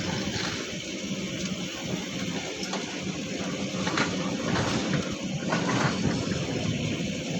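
Heavy machinery engine running steadily with a low hum, with a couple of brief knocks about halfway through.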